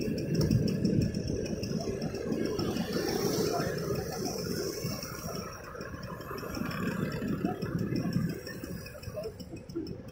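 Road traffic: motor scooters and a car driving past, their engines and tyres rising and fading in a rough rumble that dies down after about eight seconds.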